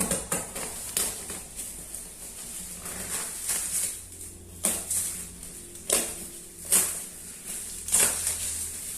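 Plastic packaging crinkling and rustling as a parcel is handled and opened, with several short, sharper crackles.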